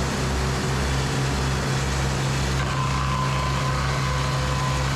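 Echo 45HD2 band sawmill's big diesel engine running, a steady low pulsing throb. About halfway a steady high whine joins in.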